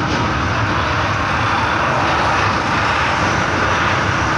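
A train crossing a steel truss bridge, heard from inside the coach: a steady, loud rumble of wheels and passing air.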